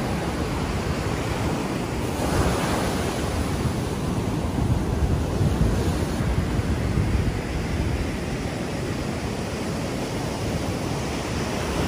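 Ocean surf breaking and washing up the beach, with wind buffeting the microphone. A wave surges louder about two seconds in.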